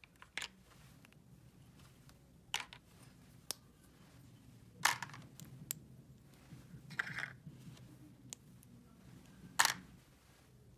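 Small plastic toy pieces clicking and tapping as they are handled, about seven sharp clicks at irregular intervals, with the loudest ones near the middle and near the end.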